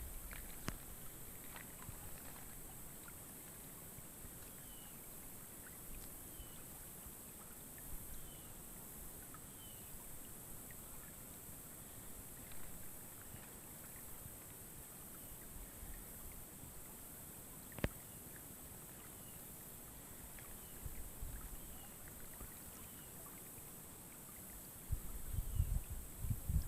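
Outdoor river ambience: a steady, gentle wash of moving water with a constant high hiss, faint short chirps repeating about once a second at times, and one sharp click partway through. Low rumbling gusts of wind on the microphone build near the end.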